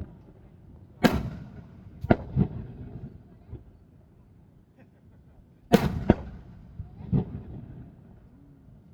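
Aerial firework shells bursting: a string of sharp booms, loudest about a second in and again near six seconds, each trailing off in a rolling echo.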